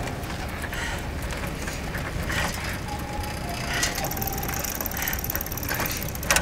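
Bicycles rolling along an asphalt street: steady tyre and chain noise over a low rumble, with a few short faint squeaks and light ticking. A single sharp click near the end.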